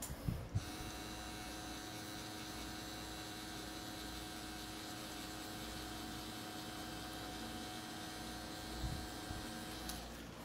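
Tattoo machine running with a steady hum while shading. It switches on about half a second in and stops shortly before the end.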